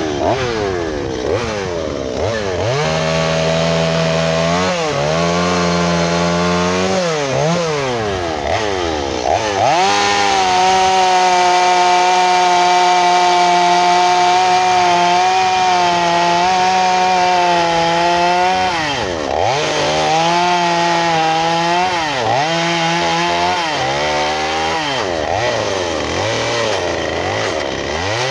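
Two-stroke gas chainsaw cutting into a log to shape a carved chain link, its engine revving up and down as the throttle is worked. About ten seconds in it holds at steady high revs for roughly eight seconds while cutting, then goes back to revving up and down.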